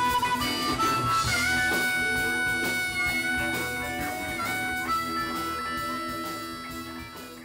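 Blues harmonica wailing long held and bent notes over electric guitar in a live blues band, the music fading down near the end.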